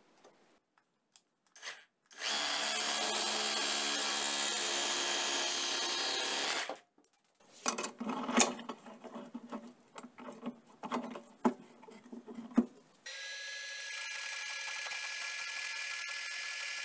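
A few light clicks, then a power tool runs steadily for about four and a half seconds and stops. Irregular metal clanks and knocks follow as a steel vise is worked and tightened on a piece of aluminium angle. About three seconds before the end, a Metal Master metal-cutting band saw switches on and runs with a steady whine.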